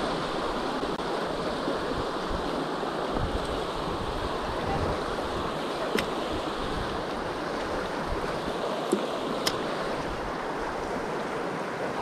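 Fast creek water rushing steadily over rocks, heard close up, with a few short sharp clicks about halfway through and again a few seconds later.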